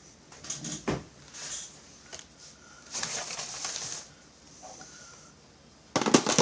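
Chainsaw parts handled on a workbench: scattered clicks and light metal rattles, with a sharp click about a second in and a quick run of clicks near the end.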